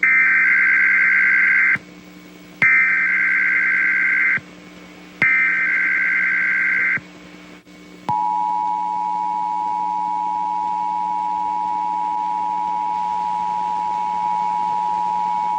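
Emergency Alert System test tones: three SAME header data bursts, each just under two seconds long with short gaps between them. About eight seconds in, the steady two-tone EAS attention signal (853 and 960 Hz) begins and holds.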